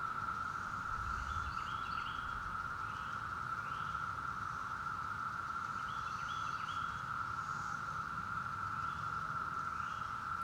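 Brood X periodical cicadas droning in one steady, unbroken chorus. A northern mockingbird sings short phrases over it in groups every few seconds.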